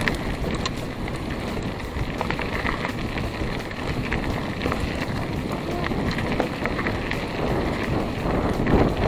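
Wind rushing over the microphone of a camera on a moving mountain bike, mixed with the tyres rolling over a dirt track and small rattling clicks from the bike.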